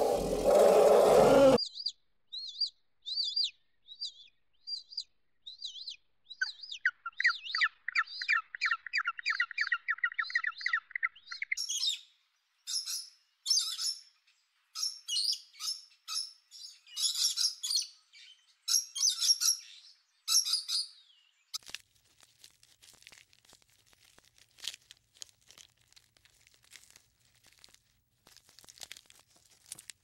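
A loud, deep animal call cuts off about a second and a half in. Birds then chirp, with a fast trill, followed by a run of loud, harsh squawks from blue-and-yellow macaws. The last third holds only faint ticks.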